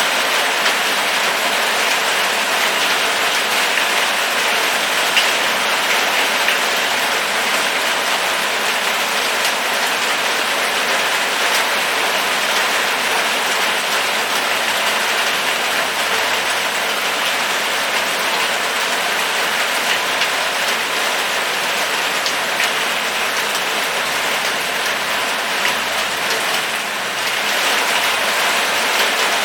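Steady rain falling, a dense, even hiss of many drops, dipping slightly in loudness near the end.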